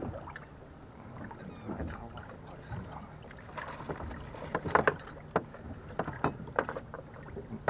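Irregular knocks and clatter of handling as a small hammerhead shark is held and unhooked aboard a fishing boat, bunched together from about three and a half seconds in and loudest near the middle, over a steady low rumble.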